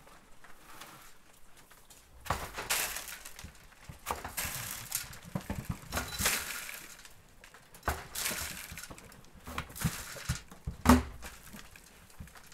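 A black rubber feed pan with hay in it being handled against wooden pen rails: several bursts of scraping and rustling, with a sharp knock near the end.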